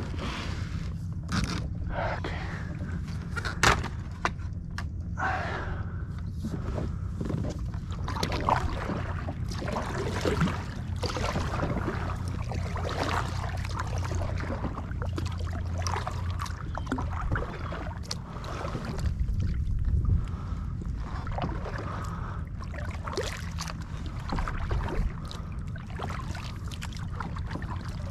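Kayak paddle strokes in the water, with splashes, drips and irregular knocks and scrapes of the paddle against the plastic hull, over a steady low rumble.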